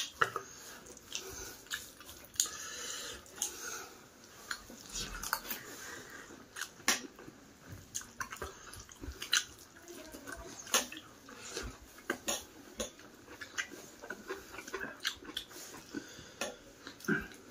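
Eating by hand from a steel plate: fingers mixing rice and curry against the metal, making irregular small clicks and scrapes, along with chewing.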